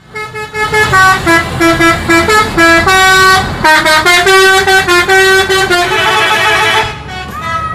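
Indonesian tour bus's musical 'telolet' air horn, loudly playing a quick tune of stepped notes one after another. It stops about a second before the end.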